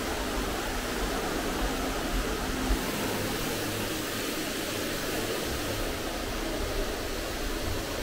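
Steady, even hiss of background noise with a low rumble underneath, with no distinct events.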